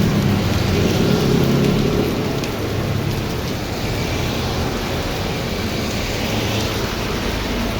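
Heavy rain falling steadily, an even hiss. A low vehicle engine hum fades away during the first two seconds.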